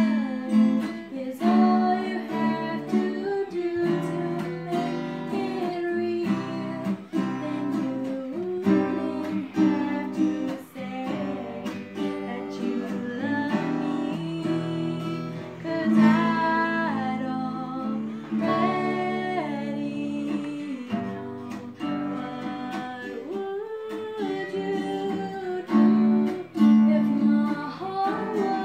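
Two acoustic guitars strummed and picked together, accompanying a young woman singing a slow ballad.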